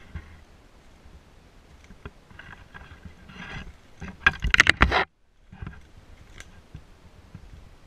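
Handling noise on a handheld camera: faint rubbing and clicks, then a loud burst of scraping and knocking against the microphone about four seconds in that cuts off suddenly.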